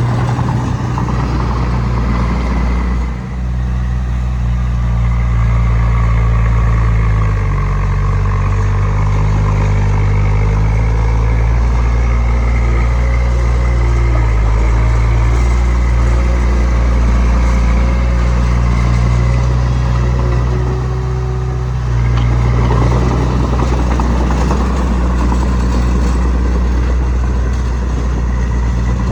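Heavy diesel engine of earthmoving machinery running steadily, its pitch shifting as the load changes about seven seconds in, with a louder, harder-working stretch from about 22 seconds.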